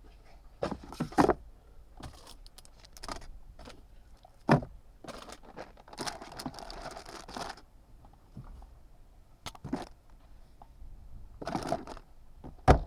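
Hands working on plastic parts of a car interior during a cabin air filter change: scattered clicks and knocks, with a stretch of rustling and crinkling about six seconds in and a sharp knock near the end.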